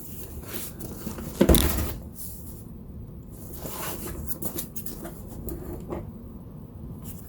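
A cardboard product box being handled: one loud knock about a second and a half in, then lighter taps and rustles.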